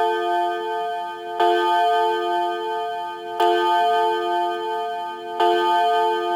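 SKP quarter-chime melody clock movement sounding its chime: a bell-like tone struck three times, two seconds apart, each ringing on with a pulsing waver over the ring of the one before.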